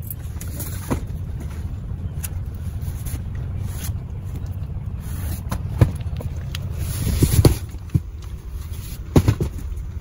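Cardboard cartons and bottled goods being shifted around inside a metal van cargo box: scattered knocks and scrapes, busiest about two-thirds of the way through. A steady low rumble runs underneath.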